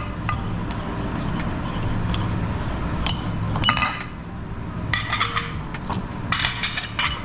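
Metal parts of a meat grinder clinking against a glass plate as the grinder is taken apart: a few single clinks, then two quick runs of clinks and rattles in the last couple of seconds.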